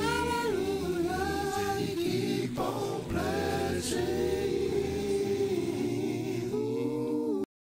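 Several voices singing an a cappella gospel song together, with no instruments. The singing cuts off abruptly near the end.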